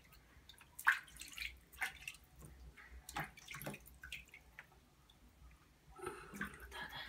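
Water splashing and dripping in a plastic baby bath as a newborn is washed by hand, in several separate short splashes.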